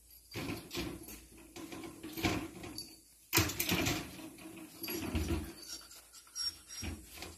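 Rustling and knocking in a wire dog crate as a puppy moves about on its blankets, with a sharp knock a little over three seconds in.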